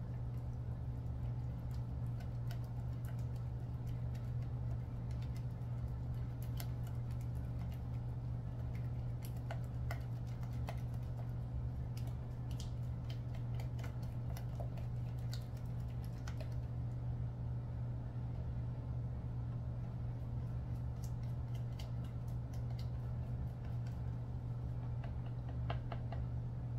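Metal spoon stirring a thick powdered-sugar glaze in a plastic measuring cup, giving irregular light clicks and taps against the cup, with a pause in the middle. A steady low hum runs underneath.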